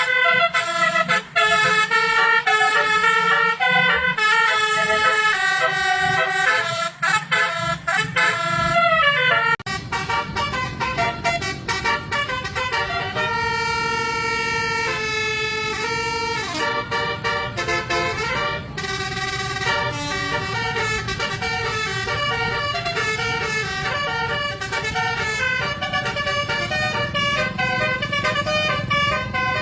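Basuri multi-tone 'telolet' bus horn playing a melody, several horn notes sounding together and stepping from pitch to pitch. From about ten seconds in, a steady low engine rumble runs under further horn melodies.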